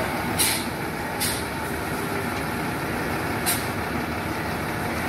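Diesel engine of a log-laden Tata SE 1613 lorry running as the truck moves slowly, with three short hisses of air from its air brakes: about half a second in, just after a second, and about three and a half seconds in.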